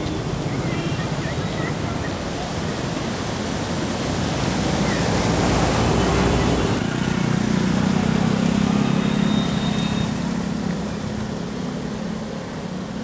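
Floodwater rushing and splashing as a vehicle drives through it close by, building up and then cutting off suddenly about seven seconds in. After that comes a steady low vehicle engine hum with water washing around the wheels as an SUV wades through the flooded road.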